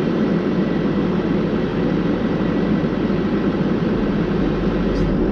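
A vehicle running steadily, a continuous even rumble.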